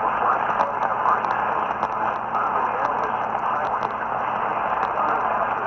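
Radio static: a steady hiss with frequent small crackles, from a receiver picking up no clear signal.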